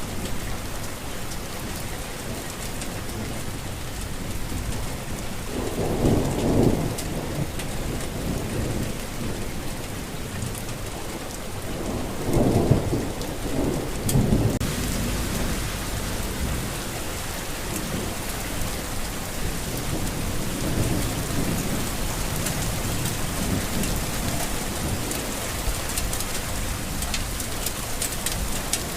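Steady rain with rolls of thunder: a low rumble about six seconds in, a louder, longer one from about twelve to fourteen seconds, and fainter rumbles later.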